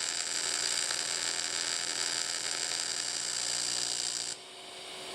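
AC TIG welding arc on an aluminium fuel tank at about 140 amps, buzzing steadily with a high hiss as the leaking weld hole is filled. The arc cuts off suddenly about four seconds in, and a fainter hiss rises after it.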